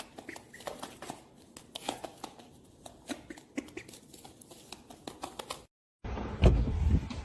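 Faint, irregular small clicks and taps, a few each second, in a small room, then a cut to a couple of dull thumps near the end.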